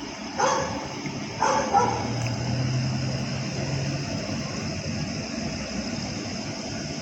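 A dog barking twice, about a second apart, over a steady background hiss.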